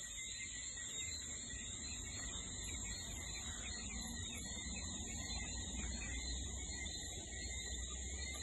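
Steady night chorus of crickets: a continuous high-pitched trill with a lower chirring layer beneath it, over a low rumble.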